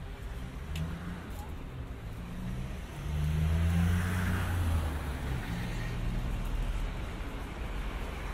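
Road traffic: a motor vehicle's engine running close by, swelling about three seconds in as it accelerates past, with tyre and traffic hiss.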